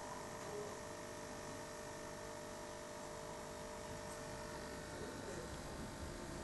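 Faint steady electrical hum of running aquarium equipment, several steady tones over a soft hiss.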